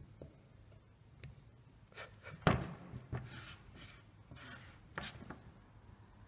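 Scalpel blade cutting and scraping chip-carving notches into a small wooden block: a few sharp clicks and short rasping cuts, with one louder knock about two and a half seconds in.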